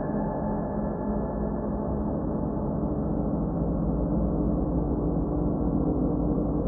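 Ambient background music: a sustained drone of many steady, gong-like ringing tones, with no distinct strikes or beat.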